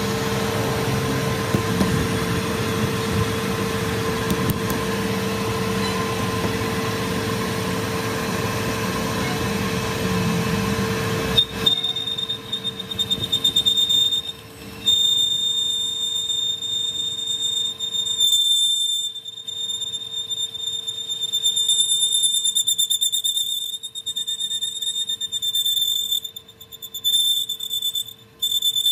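Metal lathe turning a steel truck axle shaft: the machine runs with a steady hum and broad cutting noise, then about 11 seconds in the low noise drops away and a high-pitched squeal from the cutting tool on the steel comes and goes in stretches.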